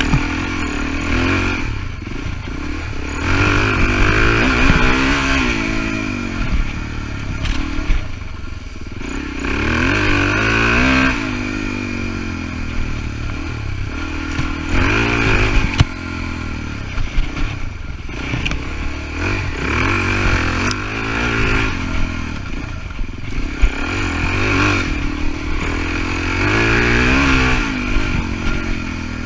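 Suzuki DR-Z400E's single-cylinder four-stroke engine under way off-road, revving up and easing off again every few seconds as the throttle is worked. A few sharp knocks cut through.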